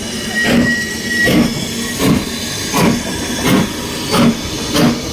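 Steam locomotive chuffing: a steady run of exhaust beats, about seven of them, roughly one every 0.7 s, over a continuous steam hiss.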